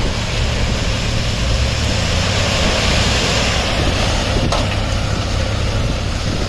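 Heavy diesel engines of a tipper truck and backhoe loaders running steadily while track ballast is unloaded. A rushing hiss swells in the middle, and there is one sharp click about four and a half seconds in.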